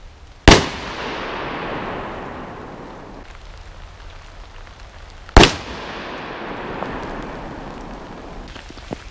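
Two shots from a 20-gauge Remington Model 11 semi-automatic shotgun firing birdshot, about five seconds apart. Each shot is followed by a long echo that dies away over a couple of seconds.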